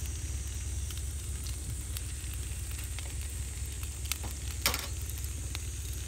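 Yellowtail steaks sizzling in butter in an iron skillet: a steady frying hiss with small pops. About two-thirds of the way in there is one sharp clack of a metal utensil.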